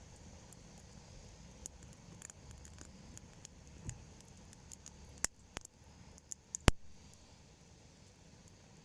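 Small pieces of wood crackling and snapping in scattered sharp clicks, with a few louder cracks in the second half, the loudest about two-thirds through.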